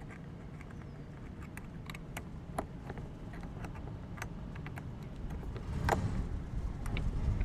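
Scattered small metallic clicks and ticks of two screwdrivers working a screw out of the wheel axle of a rolling cooler, over a steady low rumble that grows louder near the end.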